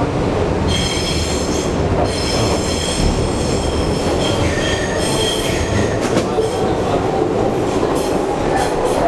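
New York City subway shuttle train running out of the station, heard from inside the car: a steady rumble of wheels on track. A high-pitched wheel squeal comes and goes from about a second in until past the midpoint, and a few sharp clicks come in the last few seconds.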